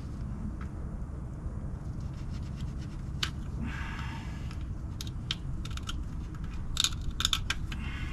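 Scratching and scattered sharp clicks of a plastic gear oil bottle being handled and its cut tip worked, over a steady low background rumble. There is a short scraping rasp about four seconds in and a quick cluster of clicks near the end.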